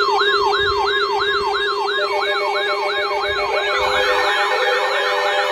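Emergency Alert System flood-warning alert sounding a siren-like tone: a fast, repeating falling wail, about two and a half sweeps a second, over a steady lower tone. A second, overlapping wail joins at about four seconds.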